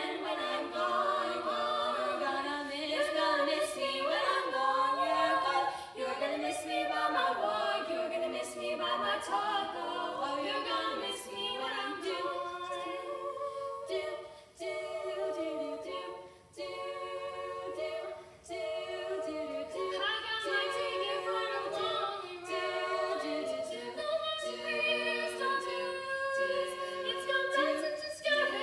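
Female vocal quartet singing a cappella in close four-part harmony: several voices hold chords together with vibrato, with short breaks between phrases about halfway through.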